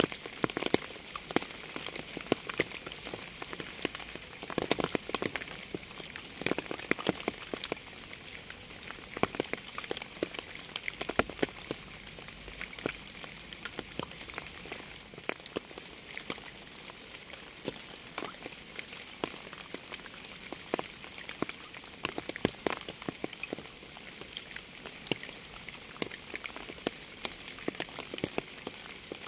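Steady rain: an even hiss with many distinct drops striking a surface in quick, irregular taps.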